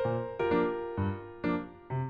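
Background music: piano-like keyboard notes struck at a steady pace of about two a second over bass notes.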